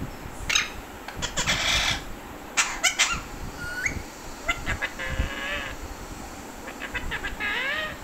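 Alexandrine parakeets calling: harsh screeches and squawks in short bursts during the first three seconds, then shorter pitched whistling and chattering notes that bend up and down.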